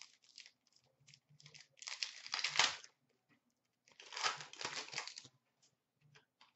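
Foil wrapper of a hockey card pack crinkling and tearing in two bursts of about a second each, with light clicks of cards being handled in between.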